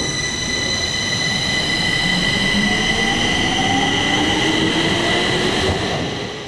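Stockholm metro train pulling out of an underground station: a dense rumble under several steady high-pitched whining tones, with a lower motor whine rising slowly in pitch as the train speeds up. The sound dies away at the very end.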